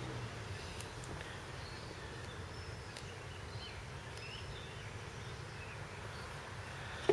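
Quiet background: a steady low hum with a few faint, short high chirps and one or two light clicks.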